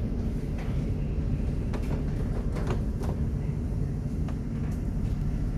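Tram running along the track, heard from inside the passenger car: a steady low rumble with a few short clicks and knocks.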